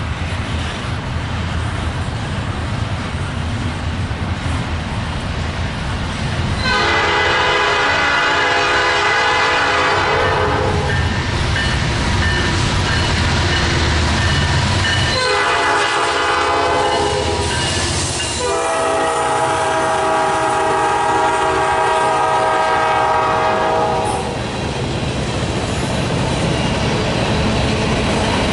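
Freight locomotive air horn blowing a long blast, a short blast, then a long blast, each with several tones sounding together. Under it runs the steady low rumble and clatter of the train on the rails.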